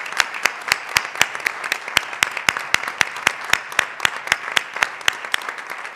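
Audience applause with one person's sharp, regular hand claps close to the microphone, about four a second, standing out over the crowd's clapping; it thins out near the end.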